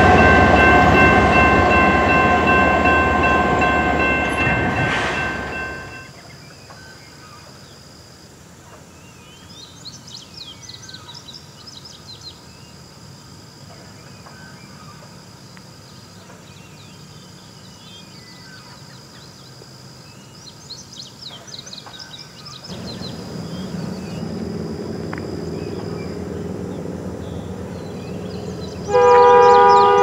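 A diesel locomotive horn chord sounds and fades away over the first five seconds. A quiet stretch follows with high chirps and a thin steady high buzz. From about 23 s the low rumble of an approaching train builds, and near the end a CN ES44DC locomotive's horn blares in suddenly and loudly.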